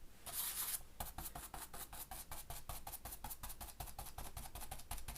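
Dry stencil brush tapping paint through a stencil onto thin paper, a steady run of quick taps at about five or six a second, with a brief brushing rustle about half a second in.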